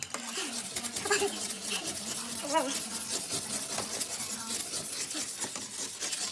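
Pumice scouring stick scraping in quick back-and-forth strokes across a glass-ceramic electric cooktop, grinding off burnt-on carbon build-up.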